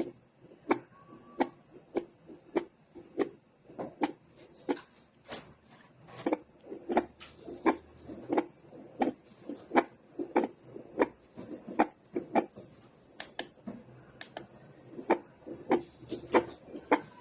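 Heartbeat picked up by a handheld fetal Doppler and played through its small speaker: a steady run of soft whooshing thumps, about three beats every two seconds.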